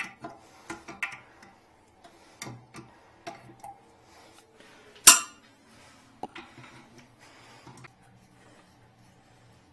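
Scattered light clicks and knocks of a small hard object against porcelain toilet ceramic, with one loud sharp knock about five seconds in.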